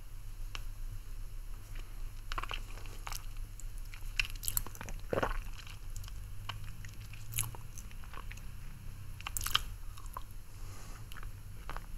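Mouth sounds of someone sucking on a hard-candy lollipop close to the microphone: scattered, irregular wet clicks and smacks, over a low steady hum.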